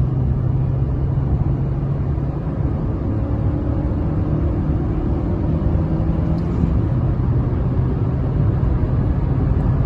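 Chevrolet Cobalt's four-cylinder engine pulling under hard acceleration at highway speed, heard from inside the cabin with tyre and road noise: a steady low drone.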